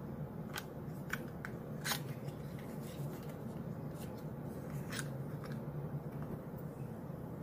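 Small cardboard box of BD Micro-Fine pen needles being opened by hand: a scattering of sharp paper and cardboard clicks and crackles as the flap is pulled open, the loudest about two seconds in. A steady low hum runs underneath.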